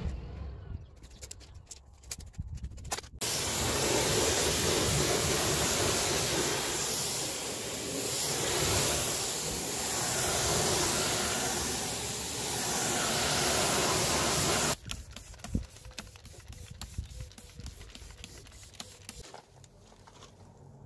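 Pressure-washer jet rinsing dirt off a car's door panel and sill: a steady hiss of spraying water that swells and dips as the jet sweeps, starting about three seconds in and cutting off abruptly near fifteen seconds. Scattered clicks come before it, and scattered drips of runoff after it.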